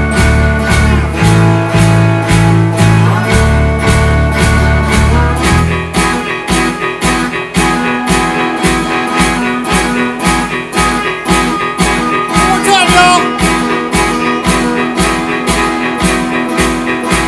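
Blues band playing an instrumental passage: electric guitar over bass and drums with a steady beat. The heavy low bass riff stops about six seconds in and the band carries on lighter, with a quick sliding run of high guitar notes about two-thirds of the way through.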